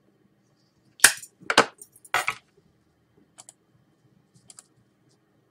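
Three short, sharp puffs about half a second apart as a deer-horn tobacco pipe is drawn on while being lit, then a couple of faint clicks.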